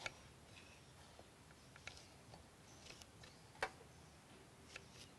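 A knife tapping on a cutting board: about five light, separate taps at uneven intervals over near-silent room tone, as vegetables are sliced.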